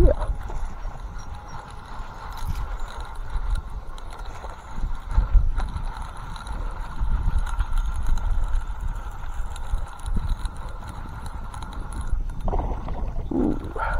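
Zebco reel being cranked steadily, winding in line on a hooked bass, with wind rumbling on the microphone.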